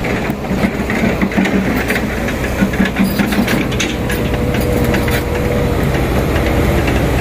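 A light truck's engine running hard under load as it climbs a steep loose-gravel slope, with gravel crackling and popping under the tyres.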